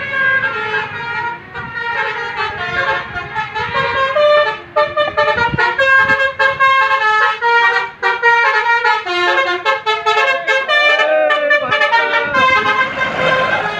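Indonesian bus's Basuri multi-tone "telolet" air horn playing a fast melody, its notes jumping quickly from pitch to pitch.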